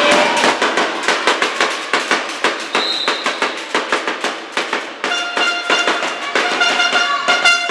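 Spectator noise in a sports hall during a handball match: rapid sharp claps, several a second, echoing in the hall. A horn-like note sounds twice in the second half.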